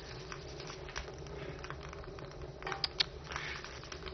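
Brass oil lamp being handled and rubbed with a cloth: small irregular metallic clicks and taps, with two sharper clicks about three seconds in, over a low steady hum.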